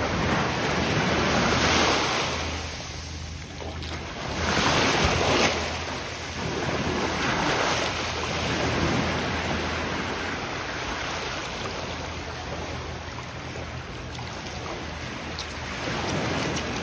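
Small waves washing over sand at the water's edge, with wind buffeting the microphone; the rush swells louder about two seconds in and again around five seconds, then settles to a steadier level.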